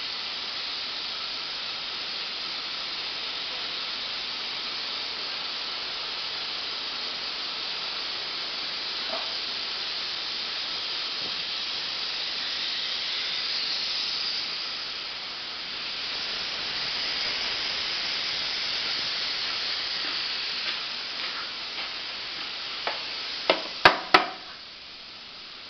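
Steady hissing noise that swells and eases twice, followed by a few sharp knocks near the end.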